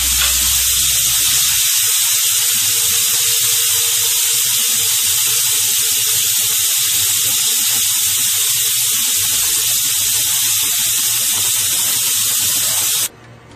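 Pressure cooker venting steam through its open vent pipe with the weight lifted off: a loud, steady hiss as the built-up pressure is released so the lid can be opened. The hiss cuts off suddenly near the end.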